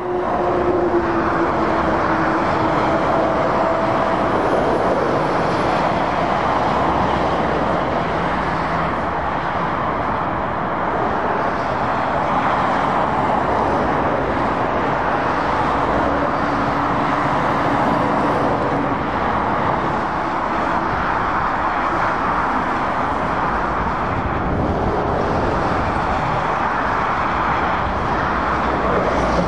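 Steady motorway traffic: lorries and cars passing, with continuous tyre roar and engine rumble. In the first few seconds a passing vehicle's hum drops slowly in pitch.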